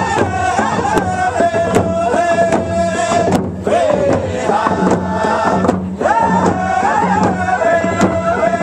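Men singing a traditional Native American round dance song, long held and gliding chanted notes over a steady drumbeat.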